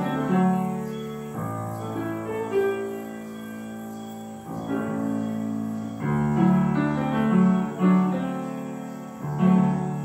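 Upright piano played in slow chords, a new chord struck every one to two seconds and left to ring and fade.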